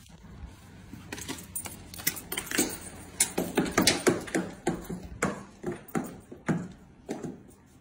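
An irregular run of sharp clicks and taps on a wooden floor, a few a second, starting about a second in and stopping shortly before the end.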